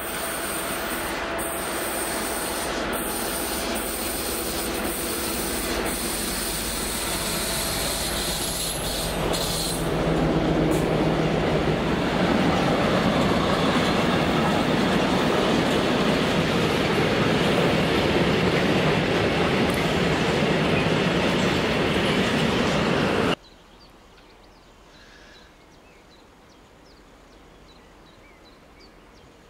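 Freight train of tank wagons rolling past close by: a steady rumble of wheels on rails that grows louder about ten seconds in as the wagons pass. The sound cuts off abruptly near the end, leaving only a faint background.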